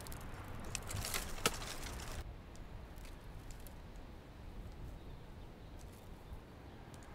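Dry vine cuttings and brush rustling and crackling as they are handled and stepped on, with many small snaps. This stops abruptly about two seconds in, leaving a quiet outdoor hush with a faint low rumble and a few soft ticks.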